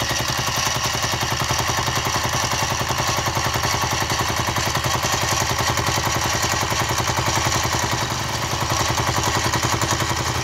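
Mini milling machine running a homemade single-tooth carbide fly cutter through a face cut on a metal block, with a loud, rapid, even chatter as the one tooth strikes the work on every turn. The tooth has had its relief ground back so that it cuts cleanly instead of rubbing.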